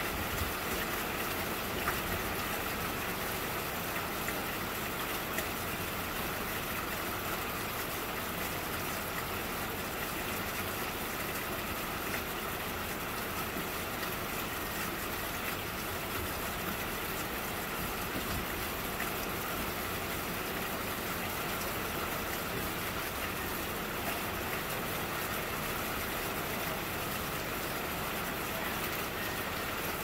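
Steady rain falling in a sunshower, an even hiss of drops with faint scattered ticks.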